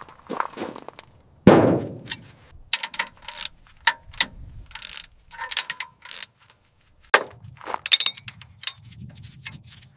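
Metal tools and parts clinking and clanging in a run of short, sharp strikes, with one heavier thud about one and a half seconds in.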